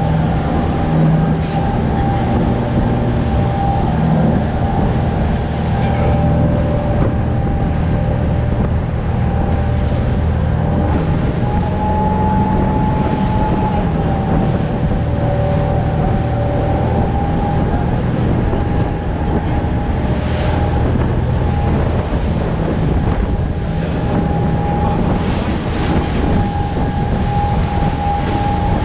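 Motorboat engine running steadily at speed, with a steady whine in its note, over the rush of the churning wake and wind buffeting the microphone.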